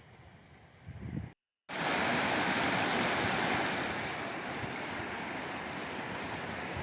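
Loud, steady rushing of fast-flowing water that starts abruptly just under two seconds in, after a brief break of total silence; before the break there is only a faint low rumble.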